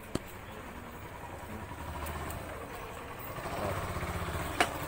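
Small motorcycle engine idling and running slowly, growing louder in the last second or so. There is a click just after the start and a sharp click near the end.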